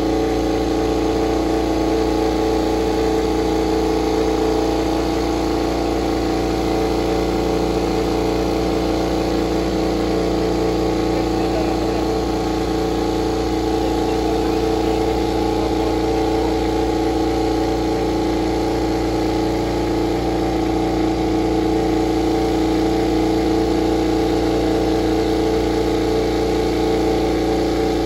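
GasGas MotoGP bike's KTM RC16 1000 cc V4 engine running at a steady warm-up idle, holding an even pitch without revving.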